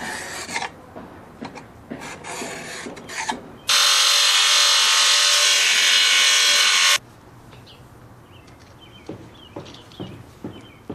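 Scraping and rubbing during tile work. About four seconds in, a power tool runs loudly and steadily for about three seconds, then cuts off suddenly. Light taps and ticks follow.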